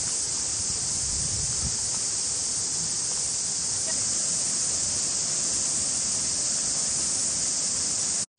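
Chorus of cicadas in the bush: a steady, high-pitched hiss that cuts off suddenly near the end.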